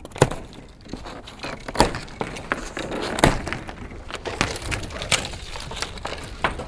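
Plastic packing straps on a cardboard shipping box being cut and pulled loose: several sharp snaps amid rustling and slapping of the straps against the box.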